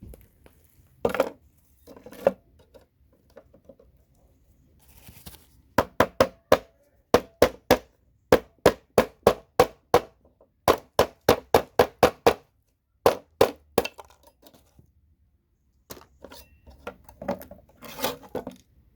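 Rapid series of sharp hammer blows, about three a second, knocking CPU sockets off scrap motherboards, after a couple of single knocks. Softer shuffling of boards and parts near the end.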